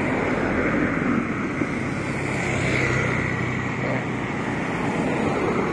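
Steady motor-vehicle and road-traffic noise with a low engine hum.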